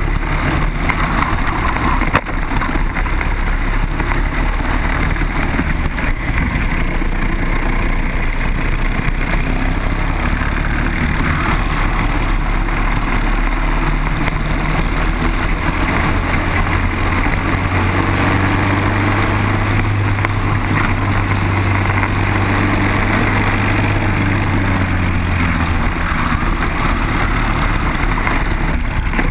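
Briggs & Stratton four-stroke kart engine running at racing speed, heard onboard, its note rising and falling through the corners, with a steadier stretch in the second half.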